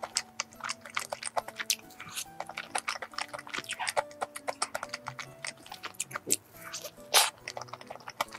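Close-miked, wet chewing and mouth smacks of soft, chewy chocolate-cream-filled bread: a quick run of small clicks, with one louder smack near the end, over soft background music.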